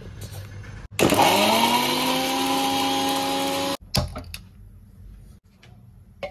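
Electric mixer grinder running with spices and water in its steel jar. The motor whine rises in pitch as it spins up, holds steady for about three seconds, then cuts off suddenly, followed by a few light clicks.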